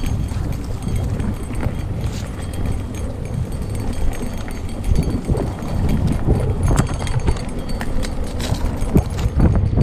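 Mountain bike riding fast down a dirt trail: a steady low rumble of tyres on dirt and leaves, with irregular clicks and knocks of the bike rattling over bumps.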